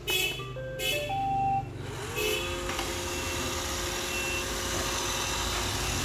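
iRobot Roomba 780 robot vacuum playing its short start-up tune of stepped beeps as its Clean button is pressed. About two seconds in, its brush and vacuum motors spin up with a rising whine and then run steadily.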